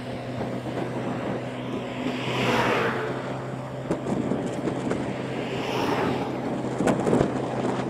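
Motor scooter riding along a highway: a steady engine hum under wind rushing over the microphone, with two louder swells, about two and a half and six seconds in, and a sharp click near the end.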